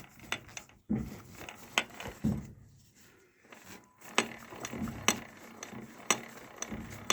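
Scattered short metallic clicks and knocks of engine parts and tools being handled, with a quiet pause of about a second and a half in the middle.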